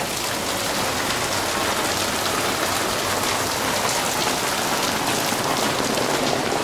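Steady rain falling on an umbrella held overhead, with many close drops ticking on the canopy.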